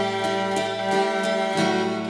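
Background music: a plucked string instrument picking notes over a steady low drone.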